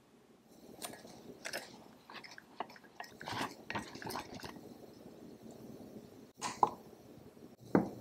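A whisk stirring dry powdery ingredients in a ceramic mug, with short, uneven gritty scraping strokes. Near the end come two sharp knocks.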